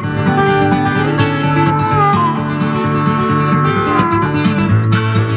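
Instrumental closing theme music led by plucked guitar, with a melody over a steady bass line.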